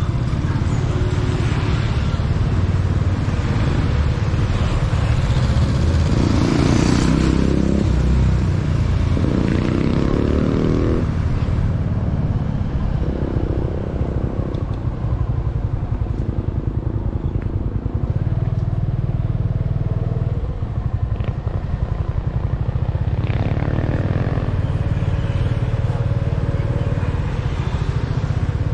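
Motorbike running while being ridden along a street, with a steady low rumble and an engine note that rises briefly about nine to eleven seconds in.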